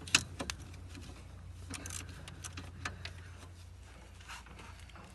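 Scattered light clicks and knocks of a hand wrench working the 10 mm bolts on the car's air-conditioning pipe fittings, over a steady low hum.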